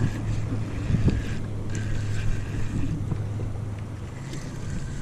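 Wind buffeting the microphone of a body-worn camera: a rumbling noise with a steady low hum beneath it and a few soft knocks.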